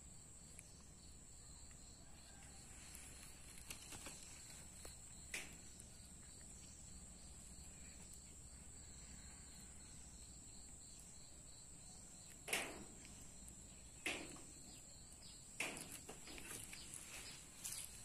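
Quiet outdoor garden ambience with a steady, high insect trill throughout. A few brief thuds of handling noise come in the second half.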